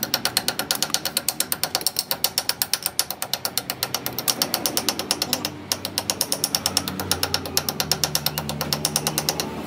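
Metal lathe turning slowly with the welded CV joint axle in its chuck, giving a rapid, regular mechanical clicking of about eight clicks a second. A low hum joins past the middle.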